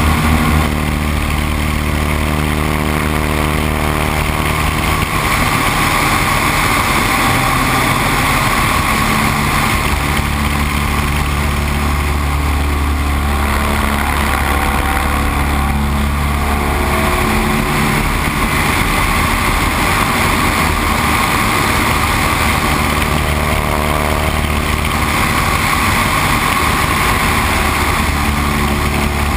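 Great Lakes 2T-1A-2 biplane's four-cylinder Lycoming engine and propeller droning steadily in flight, with wind rushing over the aircraft-mounted microphone. The low drone eases off for a few seconds twice and comes back.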